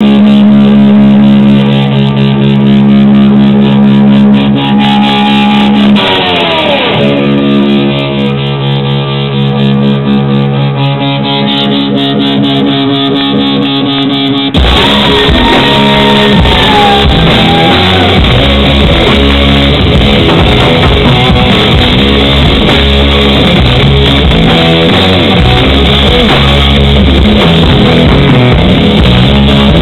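Rock band playing live. An electric guitar holds ringing notes on its own, with one bend in pitch. About halfway through, the full band comes in loud, with drums and bass under the guitar.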